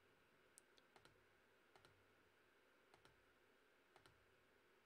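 Near silence broken by a handful of faint, irregular clicks from a computer mouse.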